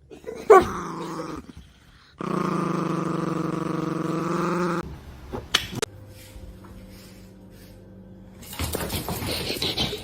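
A dog vocalizing: a short falling yelp about half a second in, then a long, steady growl of about two and a half seconds. A sharp short sound follows, and there is a rustling stretch near the end.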